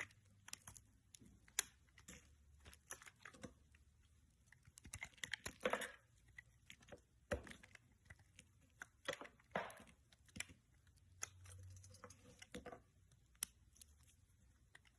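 Fidget toys being handled: scattered small clicks and taps at an uneven pace, with a few short scraping rustles.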